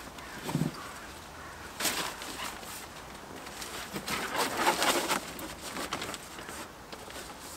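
Rustling and crinkling of an umbrella-style windscreen sun blind being opened and pressed into place inside a car, with bursts of handling noise, the busiest between about four and five seconds in.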